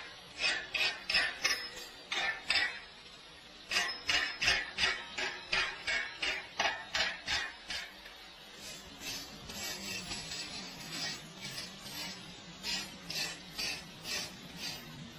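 Metal being struck repeatedly, like a hammer tapping on steel: quick sharp knocks about three a second, in runs with short pauses, fainter in the last half.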